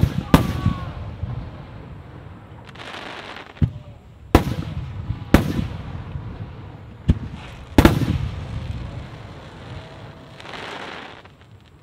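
Aerial firework shells bursting: about seven sharp bangs at irregular intervals, the strongest near the start and about eight seconds in, each trailing off in a low rolling rumble of echo.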